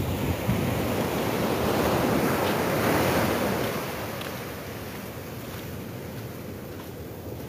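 Small surf breaking and washing up the sand, swelling louder for a couple of seconds and then easing off to a steady, lower wash.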